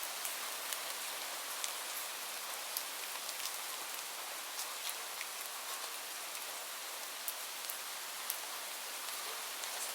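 Steady rain falling, an even hiss with scattered sharp ticks of individual drops striking close by.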